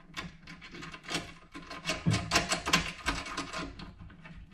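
Rapid metallic clicking and clinking as nuts, washers and lock washers are fitted and tightened on a bench grinder's mounting bolts, busiest in the middle.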